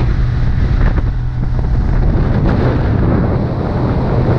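Small fishing boat's outboard motor running steadily at speed, a constant low hum under loud wind noise on the microphone and rushing water from the wake.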